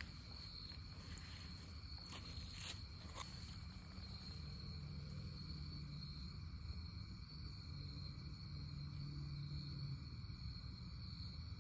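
Insects droning in one steady high-pitched tone. A low hum joins about four seconds in and stops about ten seconds in, and a few faint clicks come around two to three seconds in.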